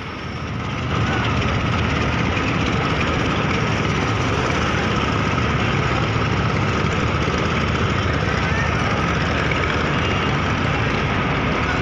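Boat engine running steadily, a loud even drone that fades up during the first second.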